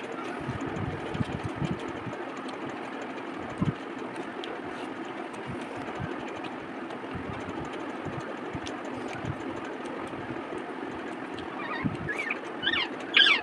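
Close-up eating sounds: fingers mixing rice and curry on a steel plate and chewing, heard as many short soft thumps over a steady background hum. Near the end a few short high warbling calls sound.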